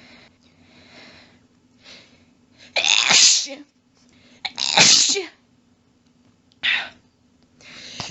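A person in a rapid sneezing fit: a few breathy catching inhales, then two loud sneezes about two seconds apart and a shorter third one. Near the end a quick breath in builds toward the next sneeze.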